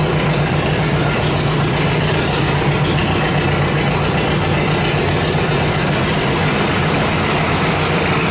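Small garden tractor engine running steadily, hitched to a pulling sled, with an even low hum that holds without rising or falling.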